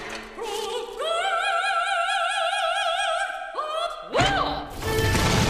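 A female operatic voice sings a long, high held note with wide vibrato, then swoops upward. Just after 4 seconds in, a loud crash breaks in, followed by a rumbling din.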